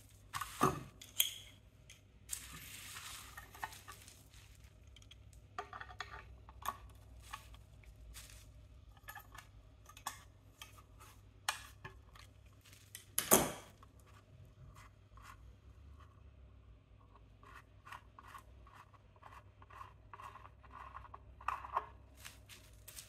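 Metal-on-metal clicks, taps and scrapes of slip-joint pliers and hand tools working the centre shaft and parts of an Alvey side-cast reel's metal backplate, with two sharp knocks, one just after the start and one about halfway. A scraping stretch runs for a second or two a few seconds in.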